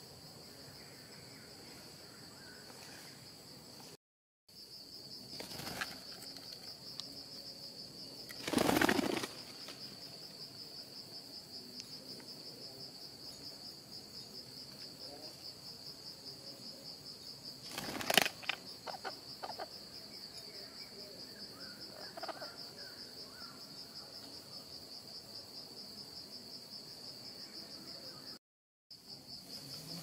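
Steady high insect trill of crickets, with a brief loud flutter of wings about nine seconds in and a sharp snap near eighteen seconds; the sound cuts out for a moment twice.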